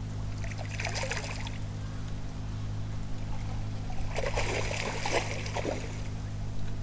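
Water splashing and trickling in two bursts, about a second in and again from about four to six seconds, over a steady low hum.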